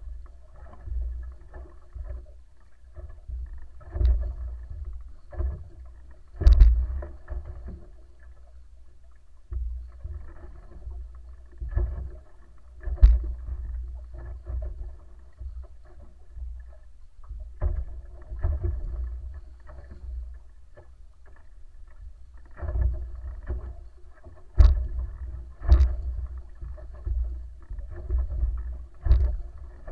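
Wooden wa'apa outrigger sailing canoe under way: water rushing and slapping against the hull and outrigger floats over a surging low rumble, with several sharp knocks or slaps and a faint steady hum beneath.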